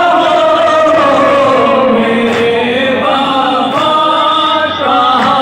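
Group of men chanting a noha, a Shia mourning lament, in unison: long, slowly gliding sung lines, the lead reciter's voice with a chorus of male voices behind him.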